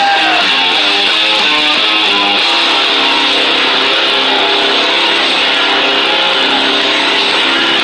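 Rock music with strummed electric guitars.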